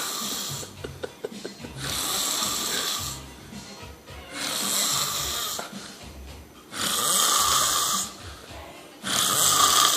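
A man snoring in deep sleep, one loud, rasping breath about every two and a half seconds, with a low rumble between them.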